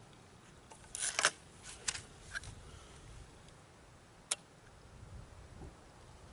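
Crosman Vantage .22 nitro piston break-barrel air rifle being cocked and loaded between shots: a cluster of loud clicks about a second in, two lighter clicks soon after, and one sharp click a little after four seconds.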